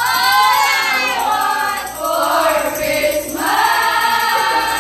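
A group of young voices singing together in chorus, in long held phrases with brief breaks about two seconds and three and a half seconds in.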